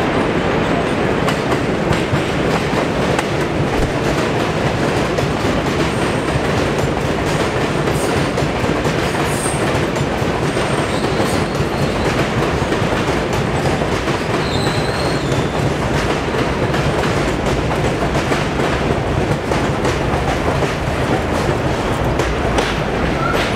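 R62 subway cars running past close by on an elevated steel structure: a loud, steady rumble and clatter of wheels over the rail joints. A few faint high squeals come in the middle.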